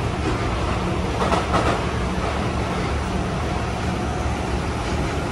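Cabin running noise of an Osaka Metro 400 series subway car: a steady low rumble of wheels on rail, with a short patch of louder clatter about a second and a half in.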